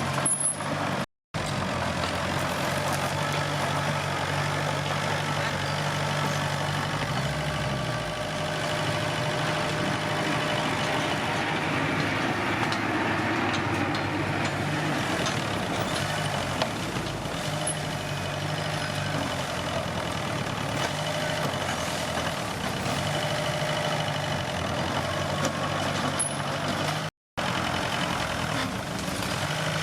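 Komatsu D21P bulldozer's diesel engine running steadily under work, its pitch stepping up and down several times as the load changes. The sound cuts out completely for an instant twice, about a second in and near the end.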